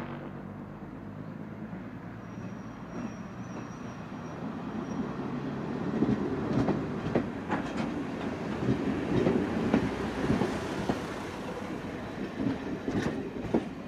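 First-generation diesel multiple unit running past close by: the diesel engines' steady note at first, then a louder rumble with sharp clickety-clack of the wheels over rail joints as the carriages go by, easing off near the end.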